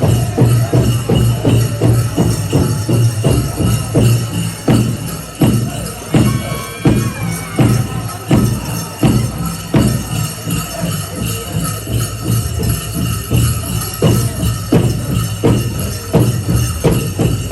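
Powwow drum beaten in a steady beat, a little over two strokes a second, with the bright shimmer of jingling metal over it.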